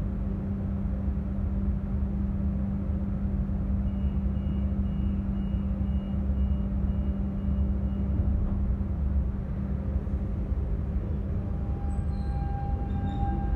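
Lisbon Metro train standing at an underground platform, giving a steady low hum and rumble. About two seconds before the end a steady high whine comes in.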